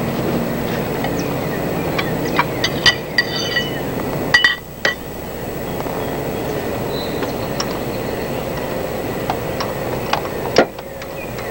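Wrench clinking against metal in a car's engine bay. There is a cluster of light metallic clinks and taps, some ringing briefly, between about two and five seconds in, and one louder knock near the end, over steady background noise.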